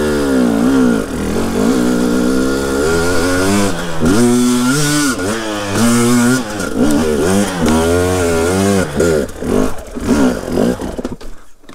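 KTM EXC 300 TPI two-stroke enduro engine under riding load, the throttle opened and closed again and again so the revs rise and fall in quick sweeps. The revs drop away sharply near the end.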